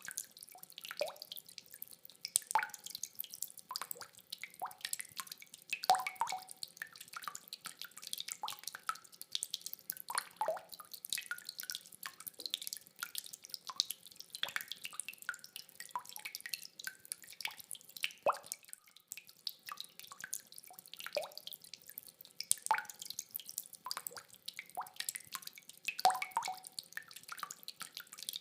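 Rainwater dripping: a dense, irregular patter of separate drops, some landing with small pitched plinks. No thunder is heard.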